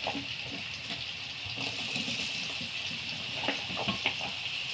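Potato strips deep-frying in hot oil: a steady sizzle with a few small crackles in the second half.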